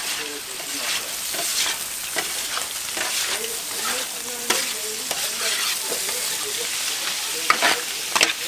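Chopped pork offal sizzling on a flat steel griddle while a metal scraper stirs and turns it, scraping and clicking against the steel, with one sharper knock near the end.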